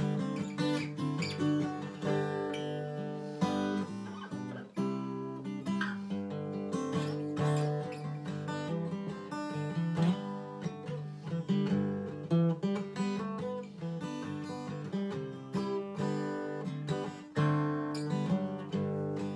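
Solo steel-string acoustic guitar playing an instrumental break of an Irish traditional song: quick picked melody notes over sustained bass notes.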